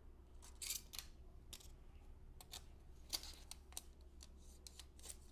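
Faint, irregular clicks and rustles of a carbon-railed bicycle saddle and a tape measure being handled and turned, over a low steady hum.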